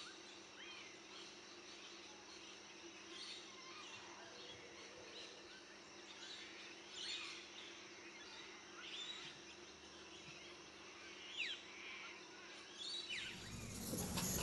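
Faint outdoor ambience with scattered bird chirps and short, quick downward-sweeping calls. Near the end a louder rustling noise cuts in.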